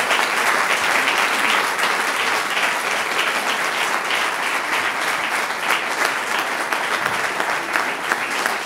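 A large seated audience applauding steadily, many hands clapping at once.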